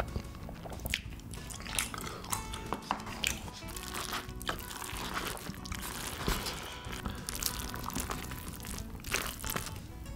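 Background music over close-up eating sounds: chopsticks mixing sauce-coated cup noodles with sausage and melted cheese in a paper cup, with wet, sticky squelches and scattered clicks.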